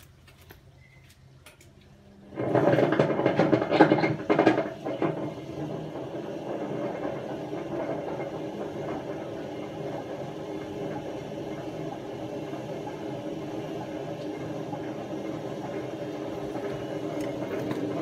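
Hotpoint First Edition FEW12 washing machine starting a fast spin about two seconds in: a sudden loud, rough start with knocks for a couple of seconds, then a steady rumble that grows slightly louder toward the end. The drum bearings are badly worn, almost gone, and the drum is not running straight.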